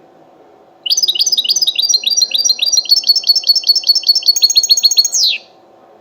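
A European goldfinch sings a rapid, evenly repeated trill of high notes for about four and a half seconds, ending in a quick downward sweep.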